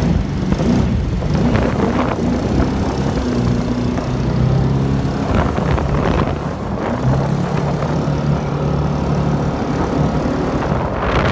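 A 1972 Nordic jet boat's V8 engine running under way. Its pitch rises and falls with the throttle, dipping around two and six seconds in and then settling steady.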